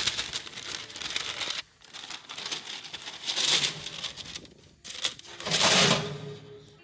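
Crisp puff pastry crust of a salmon Wellington crackling and crunching in three bursts, the last one loudest.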